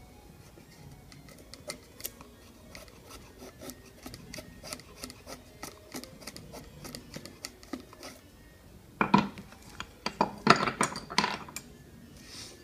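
Single-bevel wood chisel shaving curls down a wooden stick to make a feather stick: a run of short scraping strokes, a few per second, then several louder, harsher strokes near the end.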